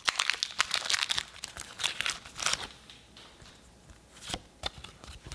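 Foil wrapper of a Pokémon booster pack being torn open and crinkled: a dense crackle for the first two and a half seconds or so, then a few scattered crinkles.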